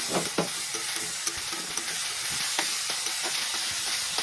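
Chopped onions sizzling in hot oil in a kadai while being stirred, with a utensil scraping and knocking against the pan now and then. The onions are frying with a little salt and sugar added.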